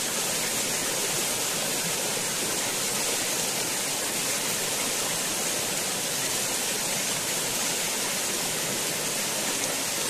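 Steady rushing of a flowing river, an even hiss with no breaks.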